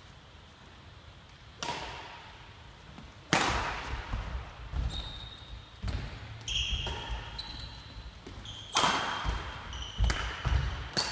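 Badminton rally: rackets striking the shuttlecock in several sharp smacks that echo around the sports hall, with shoes squeaking and feet thudding on the wooden floor as the players move and lunge.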